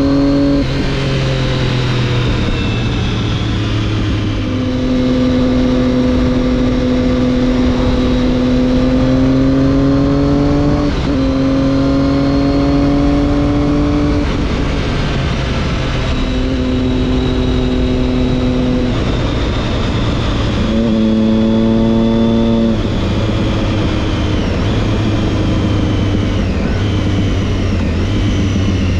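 Triumph Daytona 675's inline three-cylinder engine through an Arrow exhaust, pulling and rising in pitch, with several sudden drops in pitch as it shifts up a gear. In the last several seconds the pitch falls away steadily as the bike slows.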